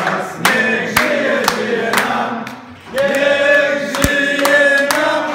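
A group of people singing a birthday song together, clapping in time about twice a second. Near the end they hold one long note.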